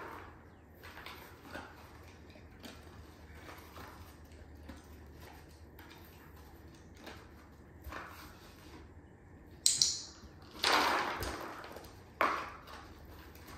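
A dog rummaging with its nose in a cardboard box of paper strips and food: soft rustling and small clicks, with a sharp click and two louder rustles of cardboard and paper near the end.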